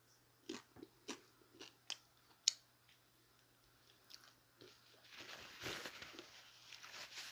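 A person chewing a mouthful of chicken taco close to the microphone: short separate mouth clicks and smacks over the first few seconds, then a longer, denser stretch of chewing from about five seconds in.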